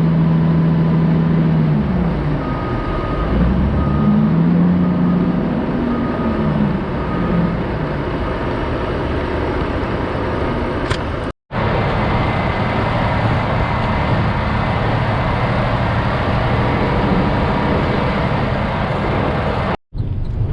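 Loaded logging truck's diesel engine and road noise heard while driving. The engine note rises and falls over the first few seconds, then settles into a steady drone, and the sound drops out for an instant twice.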